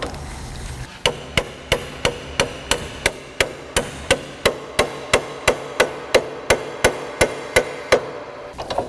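Hammer blows on a 1/8 by 1/2 inch steel flat bar clamped in a bench vise, bending it over to a 90-degree angle. The blows come at a steady pace of about three a second for some seven seconds, each one followed by a short metallic ring.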